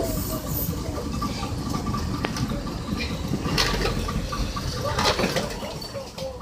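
A boat engine idling, a steady low rumble, with water moving around the hull.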